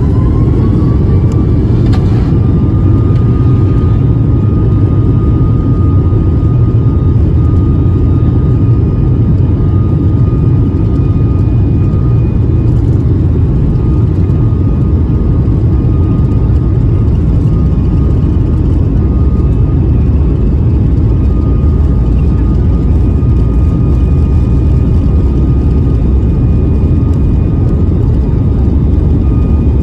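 Boeing 737 MAX 9's CFM LEAP-1B jet engines spooling up. A fan whine rises in pitch over the first two seconds, then holds steady over a loud, constant rumble. This is typical of thrust being set for the takeoff roll.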